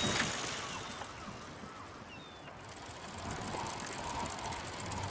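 Pedal-powered ice-cream cargo tricycle riding along: a soft rushing hiss that fades over the first couple of seconds, then a quick, even ticking of the chain and wheels from about halfway in.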